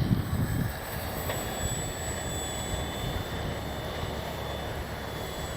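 Wind buffeting the microphone in the first half-second, then a steady rush of wind. Under it is the faint whine of the FMS Ranger's brushless electric motor and propeller in flight, its pitch drifting slightly.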